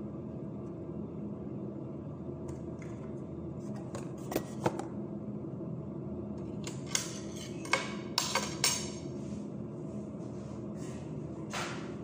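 Kitchen utensils and dishes being handled: a scattering of short, sharp clicks and clatters between about four and nine seconds in and once more near the end, over a steady low hum.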